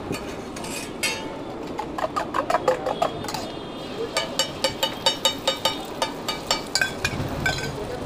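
A metal spoon clinking quickly against a metal vessel, irregular at first, then an even run of about five ringing clinks a second for a few seconds in the middle, as egg is beaten and poured onto a hot oiled street-food griddle. Under it runs a steady hiss.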